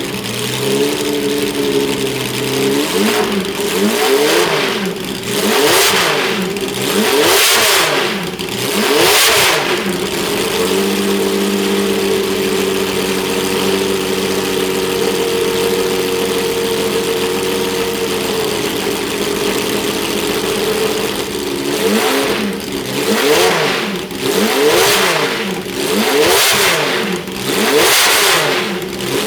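Ferrari P3/4's 4.0-litre V12 being blipped, rising and falling in sharp revs about every two seconds. Near the middle it settles to a steady idle for about eight seconds, then the blips come again.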